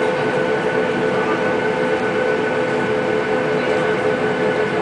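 Boeing 737-800's CFM56 turbofan engines running at low power on the ground, heard inside the cabin: a steady whine over a constant rushing hiss.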